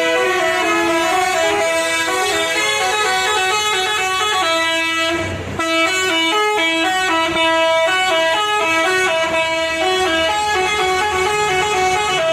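Bus telolet horn, a multi-tone musical air horn, playing a fast tune of stepped notes. The tune breaks off briefly about five seconds in, then carries on.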